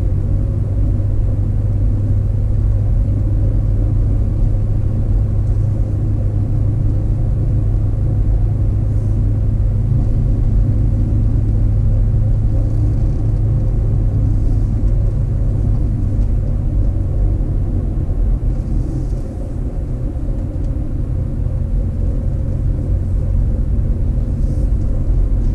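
Steady low rumble of a car, engine and road noise running evenly, with a brief slight drop in level about three-quarters of the way through.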